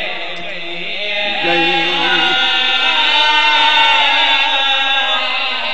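Voices chanting a drawn-out lament, long held notes that slide slowly in pitch, with several lines overlapping.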